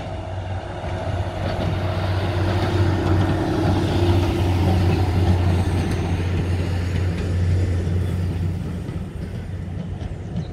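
Diesel train engine running with a deep steady drone and rolling noise, growing louder to a peak about four seconds in and then easing off as it goes by.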